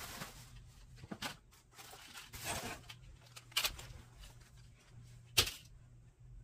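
Rustling and handling of clothes being picked up, with a few sharp knocks, the sharpest about five seconds in, over a low steady hum.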